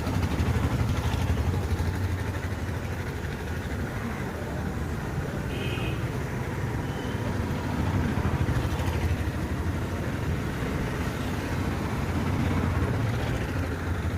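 Steady low rumble of road traffic and engines, with a brief high-pitched tone about six seconds in.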